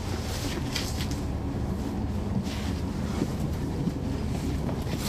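Cummins ISL9 inline-six diesel of a NABI 40-SFW transit bus running, heard from inside the passenger cabin as a steady low rumble with road and cabin noise. A few short bursts of hiss come through over it.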